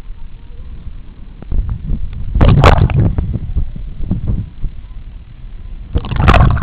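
Seawater sloshing and splashing over a camera's microphone as it is dipped in and out of the sea, a muffled rumbling broken by two loud rushes of water, one about two and a half seconds in and the other near the end.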